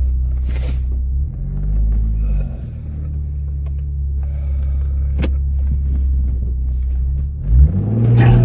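Car engine idling with a steady low rumble, its pitch rising and falling once in a brief rev about a second in and climbing again near the end.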